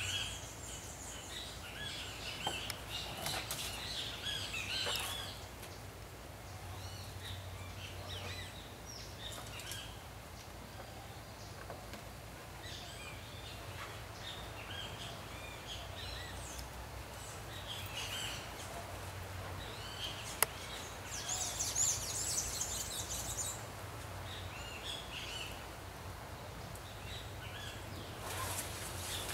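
Small birds chirping and calling on and off, with a burst of very high-pitched chirps a little past the middle. There is a single sharp click about twenty seconds in, and a faint low hum comes and goes underneath.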